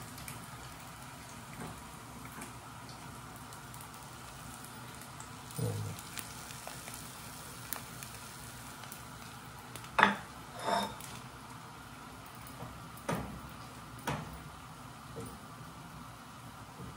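An egg frying sunny side up in a pan, with a steady sizzle. In the second half there are a few sharp knocks and clinks of a utensil against a pan.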